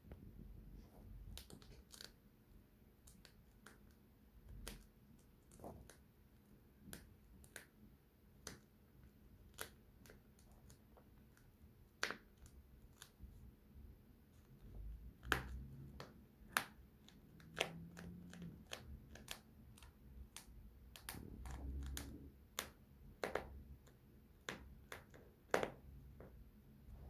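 Faint, irregular clicks and light taps, one or two a second, with a few soft low thumps; the sharpest clicks come about halfway through and near the end.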